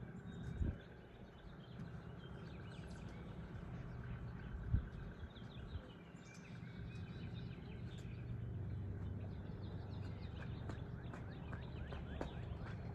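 Small birds chirping and singing over a steady low rumble, with two dull thumps, the louder one just under five seconds in.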